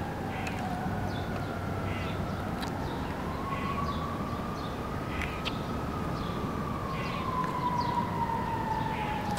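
A siren wailing slowly over a steady low background hum: its pitch falls, rises for a couple of seconds about halfway through, then falls again.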